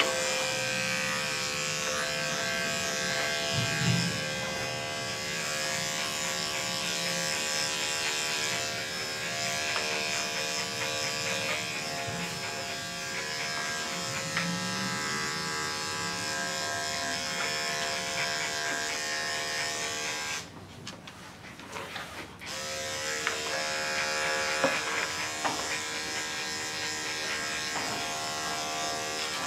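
Electric dog clippers fitted with a #7 blade, running with a steady buzz while clipping the coat on a small dog's body. The buzz drops out for a couple of seconds about two-thirds of the way through, then starts again.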